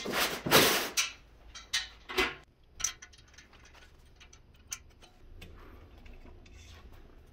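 Steel stand frame being handled on cardboard: a loud scraping rustle in the first second, then a few sharp knocks, followed by faint scattered ticks and clicks of small hardware being fitted.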